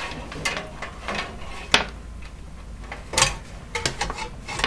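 Irregular sharp clicks and light rattles of plastic power connectors and cable bundles being handled and pushed into place at a hard disk inside a desktop computer case.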